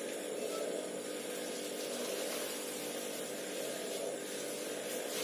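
Steady background hum and hiss with no distinct knocks or clicks.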